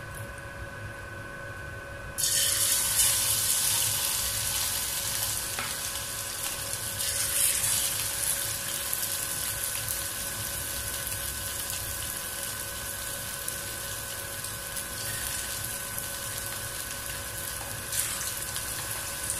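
Marinated chicken pieces dropped into hot sunflower oil in a pan: the sizzle starts suddenly about two seconds in and continues as a steady frying hiss, louder for a moment around seven seconds in. A brief knock comes near the end as a spoon moves the pieces in the pan.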